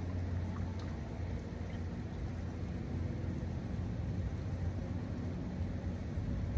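Steady low rumble under a light even hiss, with a faint hum and no distinct events.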